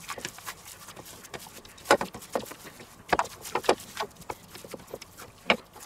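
Gloved hands kneading and pressing raw minced-meat mixture in a stainless steel bowl: irregular wet squishes and slaps, with sharper knocks about two and three seconds in.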